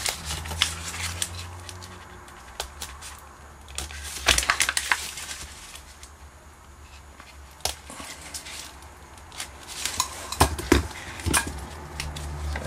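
Aluminium-laminate foil pouch of a LiFePO4 battery cell crinkling and crackling as it is peeled open and handled by gloved hands. The crackles come in irregular bursts, with a dense cluster about four seconds in and another around ten to eleven seconds.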